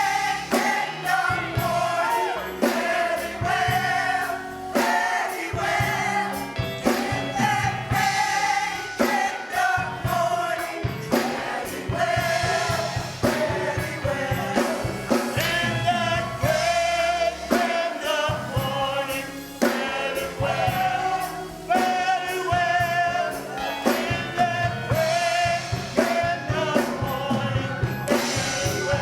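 Gospel choir singing with vibrato over instrumental accompaniment with a steady beat.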